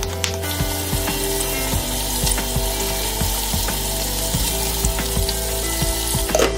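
Seasoned meat sizzling in oil in the steel inner pot of an electric pressure cooker, a steady hiss that begins about half a second in and cuts off near the end.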